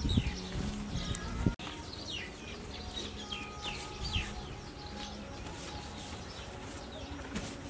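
Small birds chirping over and over, short quick calls that fall in pitch, several each second.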